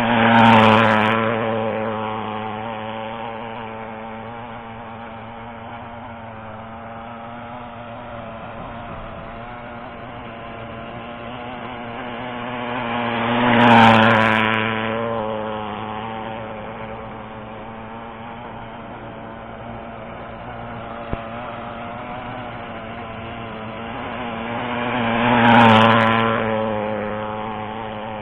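O.S. FSα .56 single-cylinder four-stroke glow engine in an RC outrigger hydroplane running hard on the water, tuned a little rich for the heat. The boat makes three close passes about twelve seconds apart; each time the engine note swells loud, then drops in pitch and fades as the boat goes by.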